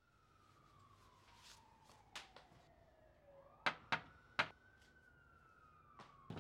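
Three quick knocks on a door, the loudest sounds here. A distant siren wails behind them, falling in pitch for a few seconds, then rising again and holding.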